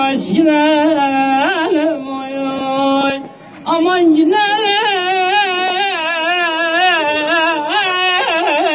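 A man singing a Turkish uzun hava, a free-rhythm folk song: long held notes with a wavering vibrato and ornamented melismatic runs, with a brief break for breath about three and a half seconds in.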